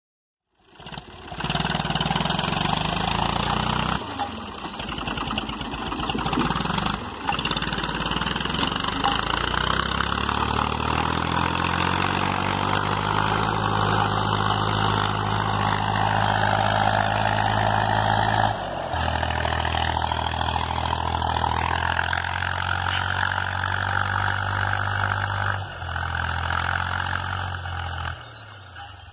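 Diesel engine of a Fiat 450 (U445) tractor running under load while pulling a plough through grassy ground. Its speed climbs for a few seconds, then shifts in steps a couple of times, and it gets quieter near the end.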